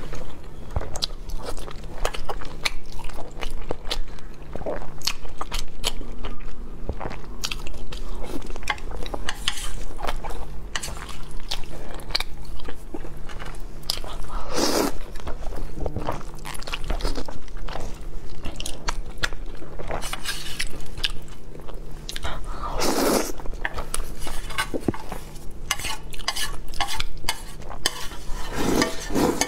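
Close-miked eating of spicy instant fire noodles: steady wet chewing with many small mouth clicks, and loud slurps of noodles about 15 seconds in, again about 23 seconds in, and near the end.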